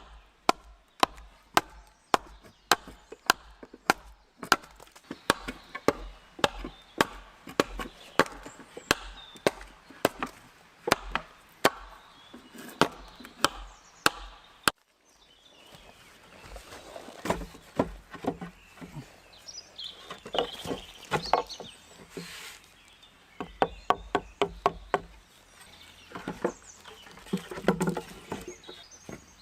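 Wood being chopped with a hand tool, sharp strikes at about two a second. The strikes stop abruptly about halfway through, then come back in shorter, irregular runs.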